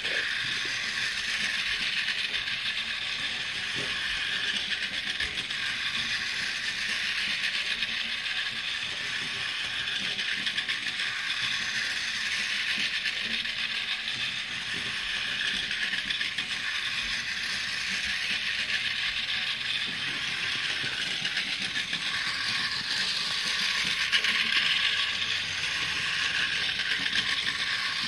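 Motorized toy train running around a plastic oval track: the steady whir of its small motor and gears.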